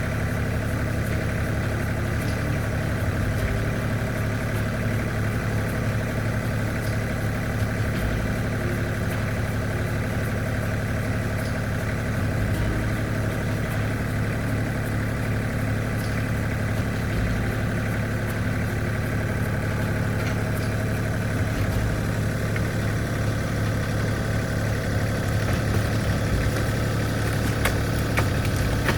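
Tractor engine idling steadily, with no change in speed.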